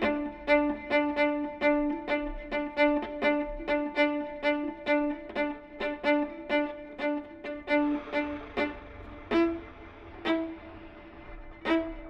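Viola playing a quick run of short, repeated notes on one pitch, about three a second. After about eight seconds the run thins out to a few spaced single notes.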